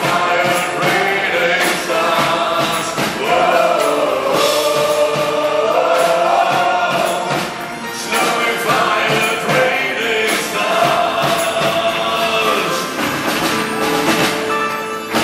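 Live rock band with a string ensemble playing, a male lead singer singing over it with percussion hits throughout.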